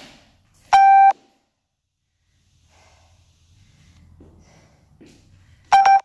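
Two loud electronic beeps from a workout interval timer: one about a second in and one near the end, each a single steady tone lasting about a third of a second.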